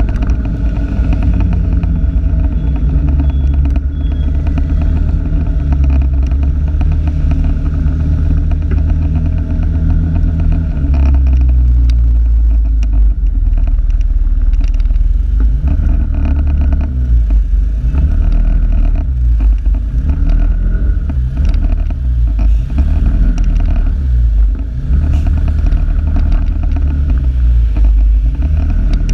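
Motor vehicle engine running on the move, its pitch holding steady, dropping about ten seconds in, then rising and falling repeatedly with the speed, over a heavy low rumble.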